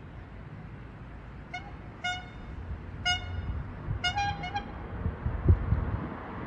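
A horn giving a series of short toots, the last few coming quickly one after another, over a low rumble that grows. There is a heavy thump about five and a half seconds in.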